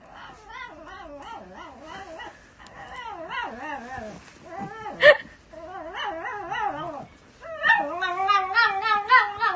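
Small white spitz-type dog vocalizing in a drawn-out warbling whine-howl, its pitch wobbling up and down without a break. There is one sharp, louder yelp about five seconds in, and the calls grow louder in the last two seconds.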